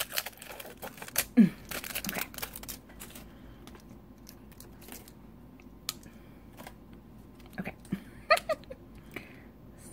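Handling of small plastic makeup tubes, a liquid lipstick and a liquid eyeliner pen: caps pulled off and fitted, with scattered clicks and taps, the loudest a little over a second in.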